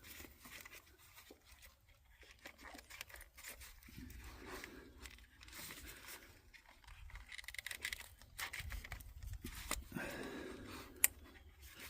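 Faint scraping and rustling of hands unhooking and pulling ignition coils from a four-cylinder engine's plug holes, with a sharp click about eleven seconds in.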